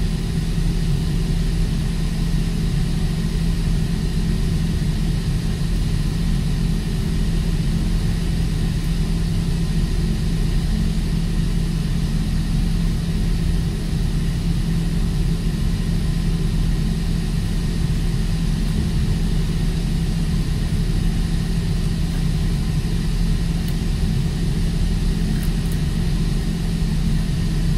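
Steady low drone of heavy machinery running, an engine-like hum with a constant low tone that never changes in level. A few faint ticks sound near the end.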